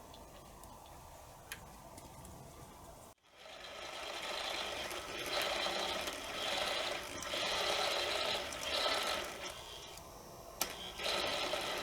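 Nakamichi 1000ZXL cassette deck's fast forward/rewind motor driving the tape transport in fast forward: a mechanical whirring that starts about three seconds in, builds up over a second or so, then wavers in level and dips briefly near the end.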